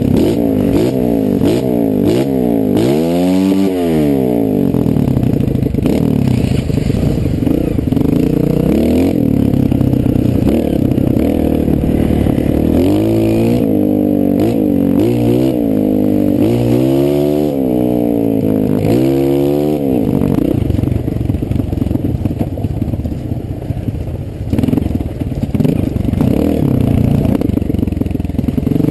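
Honda CRF230 dirt bike's single-cylinder four-stroke engine being ridden on a trail, revving up and down: one rise and fall a few seconds in, and a run of about five quick rises and falls past the middle.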